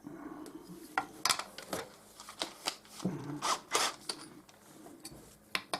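Small plastic parts being handled and fitted against each other: a scattering of light clicks and short scrapes.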